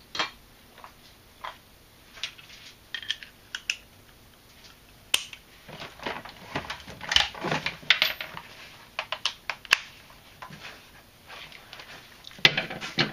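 Irregular metallic clicks and knocks of hand tools and sockets being handled and set against a riding-mower deck's spindle housing and bolts. There are scattered sharp taps, some with a brief metallic ring, busiest in the middle, and no tool motor running.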